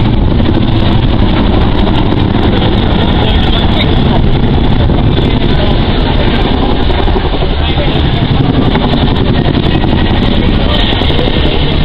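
Boeing Chinook tandem-rotor helicopter flying past, its two rotors beating and twin turbine engines running, loud and steady throughout.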